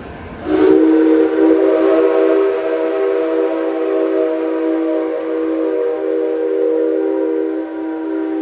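C57 steam locomotive's whistle sounding one long, steady blast, a chord of several tones together, beginning about half a second in.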